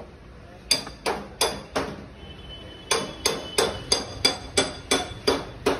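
Small hammer tapping on metal on a power steering pump being assembled. There are a few separate taps, then a steady run of about three quick strikes a second, each with a short metallic ring.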